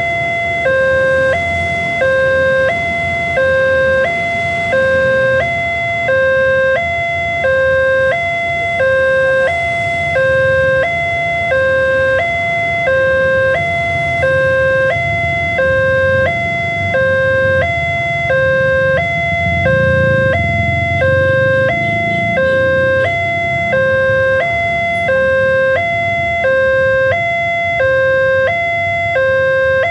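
Railway level-crossing warning alarm from the horn loudspeaker on the crossing pole: an electronic two-tone signal alternating between a lower and a higher note, about one cycle a second, sounding while the barrier is down for an approaching train. A low rumble swells under it about twenty seconds in.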